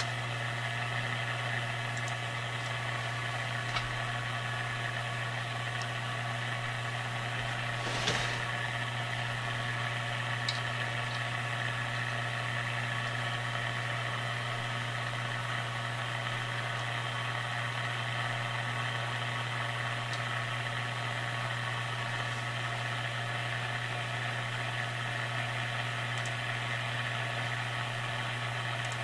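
Marconi 201A vacuum-tube radio turned down low, its speaker giving a steady hum with hiss above it, and a single click about eight seconds in. It is the mild hum the owner reckons is easy to knock out.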